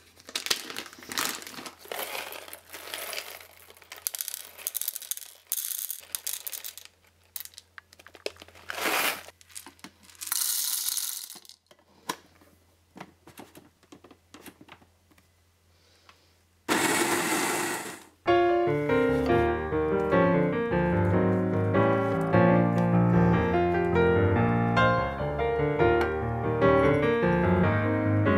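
Foil coffee bag crinkling as it is opened and handled, with coffee beans rattling as they are poured. Then a short, even burst of an electric burr coffee grinder running. Piano music cuts in abruptly about two-thirds of the way through and continues.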